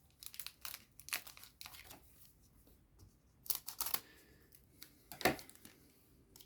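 Foil trading-card booster pack wrapper crinkling and being torn open by hand, in irregular short crackles, the loudest about five seconds in.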